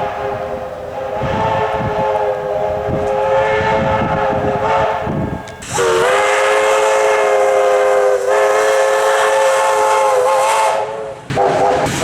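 Train horn sounding a chord of several notes in long blasts: one held until about halfway, a second held about five seconds that slides up onto pitch as it starts, and a third starting near the end.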